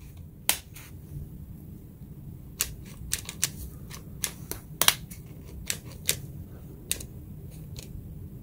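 About a dozen sharp, irregular plastic clicks from the trigger and switches of an Avid Power 20V Max cordless impact wrench as it is worked, with no motor sound. The tool will not run, which the owner puts down to a dead battery or some other fault.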